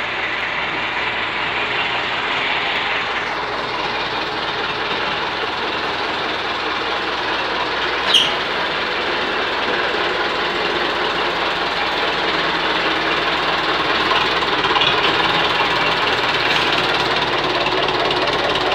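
UTB 650 tractor's four-cylinder diesel engine running with a steady clatter, growing slightly louder near the end. A brief high squeak sounds about eight seconds in.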